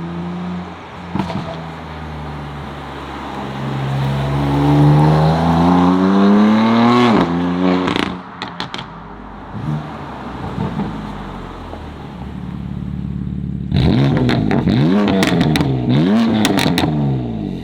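BMW M4's S55 twin-turbo straight-six, on catless downpipes with the exhaust flaps open, pulling hard under load in Sport+: the note climbs steadily to a peak about seven seconds in, then drops sharply with a few cracks from the exhaust. Near the end it rises and falls several times in quick succession, with more sharp cracks.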